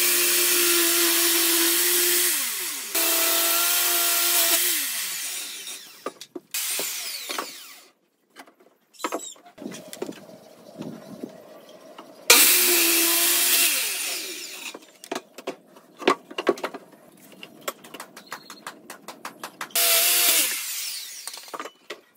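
Handheld electric circular saw cutting through pallet wood in four bursts, its motor tone falling as it spins down after the cuts. Short knocks and clatter of boards being handled come in between.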